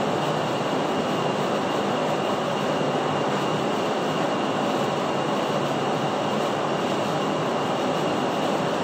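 Steady, even rushing noise with a faint high whine, unchanging throughout.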